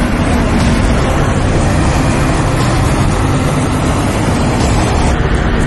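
Canvas-covered military trucks running in convoy: steady, dense engine and road noise.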